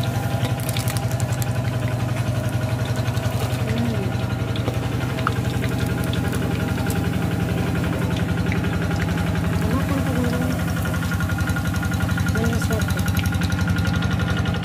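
A small engine idling steadily, with a fast, even pulse, under a few metal clicks of a spatula against a wok.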